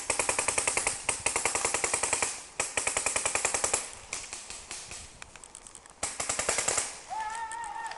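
Paintball markers firing in rapid bursts, about ten shots a second: a long burst, a shorter one right after, and another brief burst near the end.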